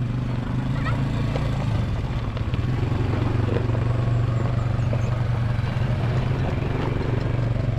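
ATV engine running steadily under throttle, a low even engine note with faint rattles over it.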